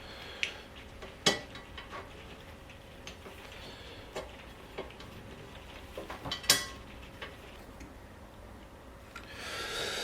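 Light clicks and knocks of small metal and plastic parts and a hand tool being handled as an M6 countersunk Allen bolt is screwed down through a mounting plate into a captive-nut plate. The sharpest clicks come about a second in and just after six seconds, with a short rustle near the end.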